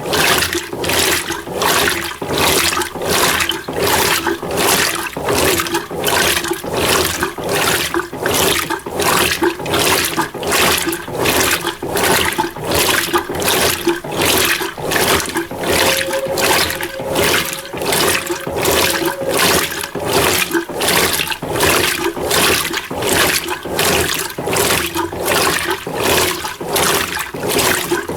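Mueller Energy 8 kg top-load washing machine agitating a small load of clothes in low water: a rhythmic swish of sloshing water about twice a second over a steady hum, during the wash stage of the Quick program.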